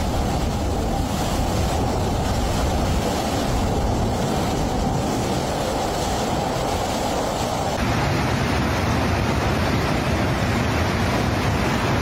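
Steady rumbling roar of a landslide pouring rock and debris down a mountainside; about eight seconds in, it cuts to the continuous rush of a muddy flood torrent.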